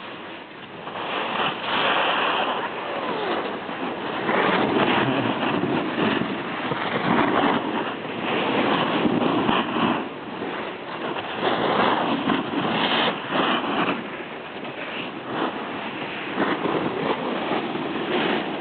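Rushing noise of riding down a packed-snow ski slope: wind buffeting the microphone and the scrape of sliding on snow, rising about a second in and then swelling and fading unevenly.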